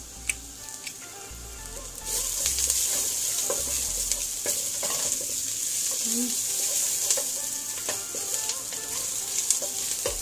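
Chopped onions sizzling in hot oil in a metal pot, the frying hiss getting louder about two seconds in. A wooden spoon stirs through them with occasional knocks and scrapes against the pot.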